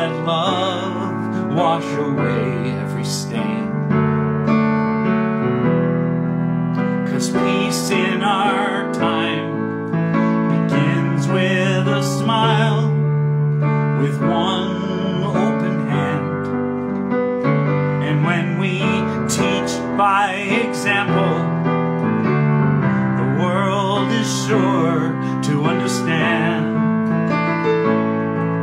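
Piano music played continuously, with a voice singing held, wavering notes over it in places.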